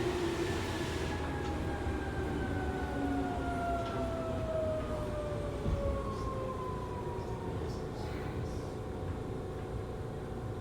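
Interior running noise of a Seibu 2000-series field-chopper-controlled electric train, with the traction motor and gear whine falling slowly in pitch as the train slows, fading out about seven seconds in over a steady rumble of wheels on rail.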